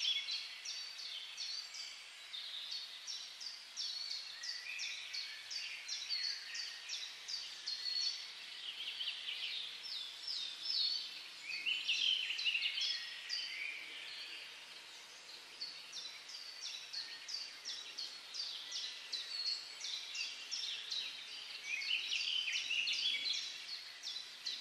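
Background birdsong: a long series of short, high, downward-sliding notes repeating about three times a second, with louder bursts of chattering every few seconds.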